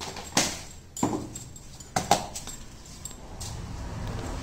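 A few sharp plastic clicks and knocks as a spice container's lid and spoon are handled, four in the first two seconds or so, the loudest about half a second in.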